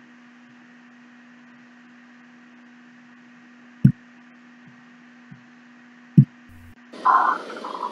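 Faint steady electrical hum on a desktop microphone, with two sharp computer-mouse clicks about four and six seconds in. About seven seconds in, a louder hissy wash of sound cuts in as the live stream's audio starts to play.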